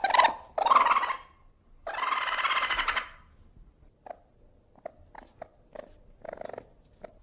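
Ferret whining: two short calls, then a longer pitched squeal of about a second about two seconds in, followed by a string of soft short chirps and clicks.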